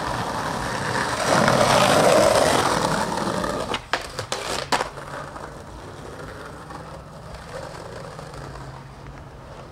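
Skateboard grinding along a stone ledge with a loud scraping rush, then several sharp clacks as the board comes off and lands about four seconds in, then the wheels rolling quietly on pavement.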